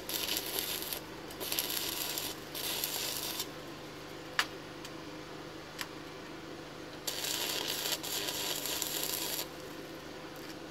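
Stick (arc) welding on a steel exhaust pipe and flange, the arc crackling in short runs: three brief bursts in the first few seconds, then a longer one from about seven to nine seconds in. Two sharp clicks fall in the pause between.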